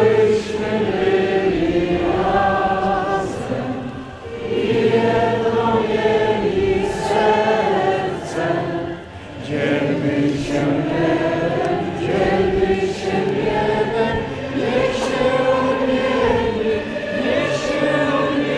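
Many voices singing a hymn together in long, held phrases, with short breaks between phrases about 4 and 9 seconds in.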